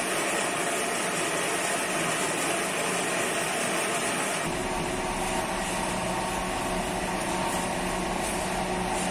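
Steady mechanical hum of running machinery. About four and a half seconds in it changes to a deeper hum with a steady low tone.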